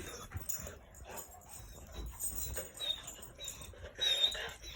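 Silver Labrador whimpering faintly, a sign of excitement rather than distress, among scattered light knocks and scuffles, with a louder patch about four seconds in.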